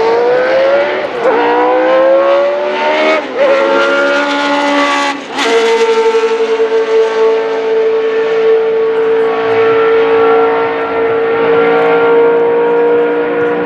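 Cosworth DFV 3.0 V8 of an Arrows A4 Formula 1 car accelerating hard: the note climbs and drops sharply at three upshifts. It then holds one steady high note at constant revs.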